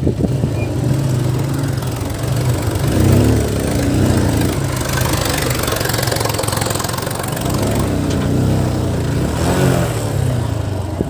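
Farm tractor's diesel engine running as the tractor and its trailer pass close by, swelling twice, with a motorcycle engine idling underneath.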